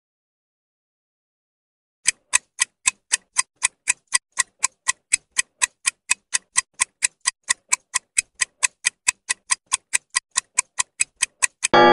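Countdown-timer clock-tick sound effect: sharp, even ticks at about four a second, starting about two seconds in. A keyboard chord comes in right at the end.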